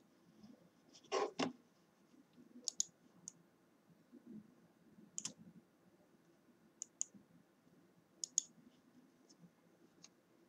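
Button clicks of a Corsair Harpoon RGB gaming mouse, single and double clicks at irregular intervals, with a louder pair of clicks about a second in.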